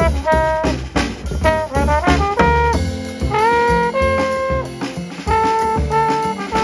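Jazz trombone playing a melodic line of short and held notes, some bent in pitch, over a plucked upright bass line.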